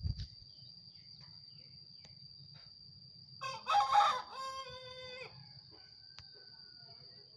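A rooster crows once, about three and a half seconds in: one call of about two seconds that rises to a peak and ends on a held note. Under it is a steady high thin whine.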